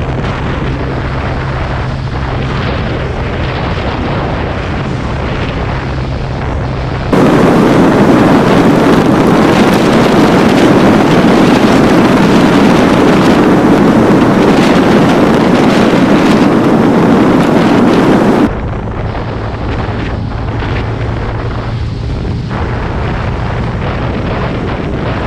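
Wind rushing over the microphone of a moving motor scooter, over a steady low engine hum. About seven seconds in the wind noise jumps much louder and rougher for some eleven seconds, then drops back just as suddenly.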